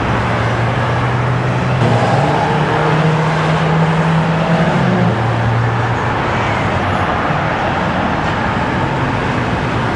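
Road traffic noise with a vehicle engine running close by; its hum steps up in pitch about two seconds in and drops back about five seconds in.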